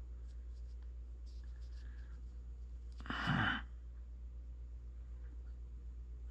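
A person sighing, a heavy breath out about three seconds in and another starting near the end, with a few faint handling clicks before the first. A steady low hum runs underneath.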